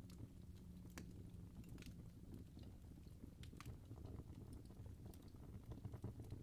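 Fireplace fire burning softly: a low rumble with scattered sharp crackles and pops from the burning wood.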